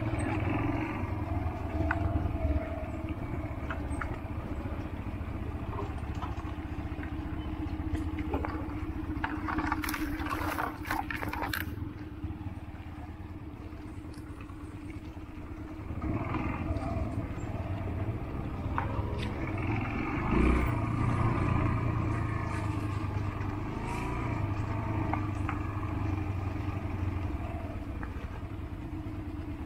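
Yamaha XTZ 125's single-cylinder four-stroke engine running over a rough dirt trail, its note rising and falling with the throttle. A cluster of clattering knocks comes about ten seconds in, then the engine runs quieter for a few seconds before pulling louder again, with a thump about twenty seconds in.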